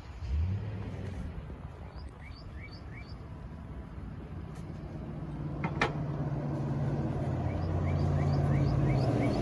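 A motor vehicle's engine running, a low steady hum that grows louder toward the end. A bird gives two quick series of short chirps, and there is one sharp click about six seconds in.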